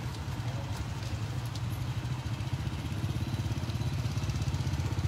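Small motorcycle engine idling with a steady, rapid low beat that gets louder over the last couple of seconds.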